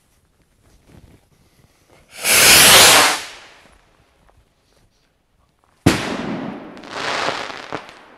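Oversized firework bottle rocket launching with a loud whoosh about two seconds in, lasting about a second. About six seconds in its payload bursts with a sharp bang, followed by a swelling hiss that fades away.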